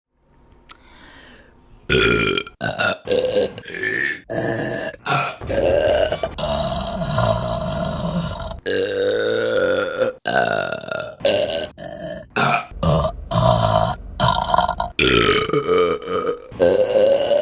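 Women burping one after another, a string of loud burps starting about two seconds in. Some are short and some are long and drawn out, with brief gaps between them.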